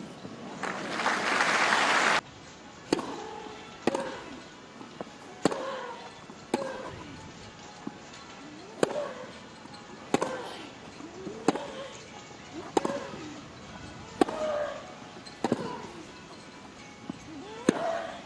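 A burst of crowd applause near the start that cuts off abruptly, then a tennis rally: the ball is struck by rackets about every second and a half, and most hits come with a short grunt from the player.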